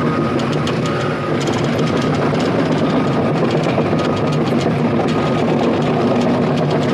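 Heavy diesel engine running steadily at an even pitch, with faint clicking rattles over it.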